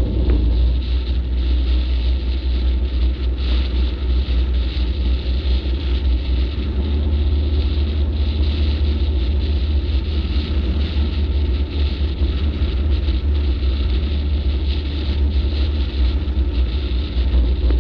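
Steady low rumble of a flatbed tow truck driving at freeway speed, with wind buffeting the microphone and road noise over it.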